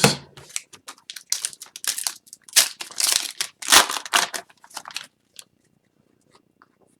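Foil trading-card pack wrappers crinkling and crumpling in the hands, in a run of rustling bursts that stops about five seconds in.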